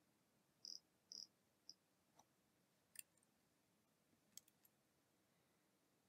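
Near silence: room tone with a few faint, short high clicks, three close together about a second in and a couple more later.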